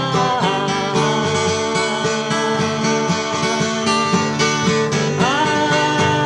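A song on acoustic guitar, with a sustained melody line that glides down just after the start and slides up to a higher held note about five seconds in.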